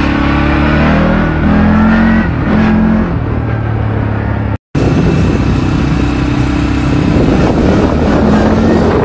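ATV engine running under way, its pitch rising and falling with the throttle. The sound drops out briefly about halfway through, and a noisier stretch of running follows.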